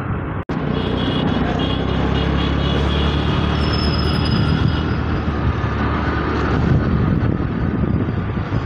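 Steady road and engine noise from a moving vehicle on a city street, with a thin high squealing tone from about one to five seconds in. The sound drops out briefly about half a second in.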